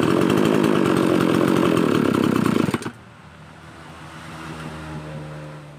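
Two-stroke mini chainsaw engine running fast, then dropping abruptly to a low, steady idle just under three seconds in, as the carburetor mixture screws are being adjusted. At that idle the saw is close to stalling, which calls for turning the low-speed (L) screw back a little.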